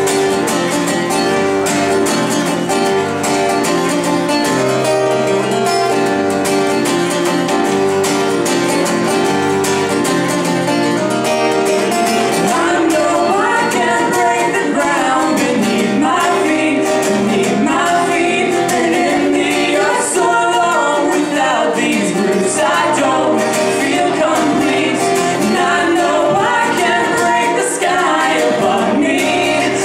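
Live acoustic band music: a strummed acoustic guitar with other instruments, and singing entering a little under halfway through.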